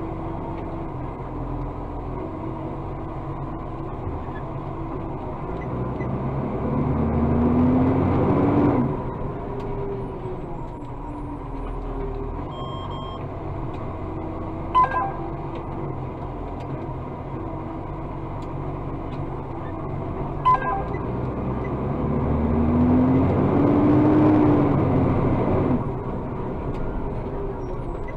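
Iveco truck's diesel engine running in the cab. Twice it climbs for a few seconds to a louder, higher-pitched run, as it does when driving the joystick-worked hydraulic equipment, then settles back. Two short sharp clicks come in between.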